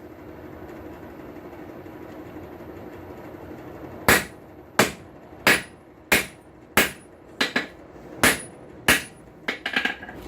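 Hand hammer striking hot steel on an anvil: about ten blows, roughly two thirds of a second apart, a few followed by a quick light bounce, starting about four seconds in. This is the boss of a tong blank being drawn into rough shape. Before the blows there is a steady rushing noise.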